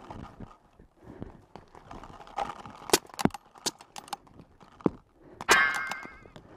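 Paintball markers firing on the field: an irregular string of sharp cracks and pops, loudest about three seconds in. About five and a half seconds in there is a short wavering, high-pitched sound.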